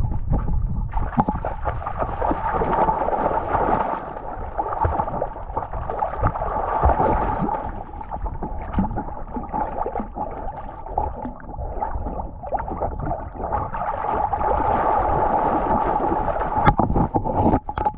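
Water sloshing and gurgling close around a cocker spaniel swimming in a river, picked up by a camera strapped to its back, with many short knocks and rustles as it wades in and scrambles out through the bank plants.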